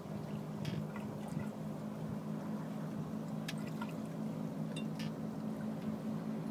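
Water gurgling and trickling along the hull of a sailing trimaran moving slowly through calm water, with scattered small splashes and clicks. A steady low hum runs underneath.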